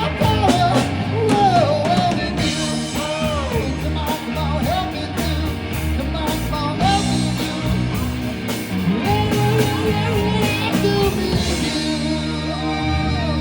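Rock band playing, with a singer's voice over guitar, bass and drums.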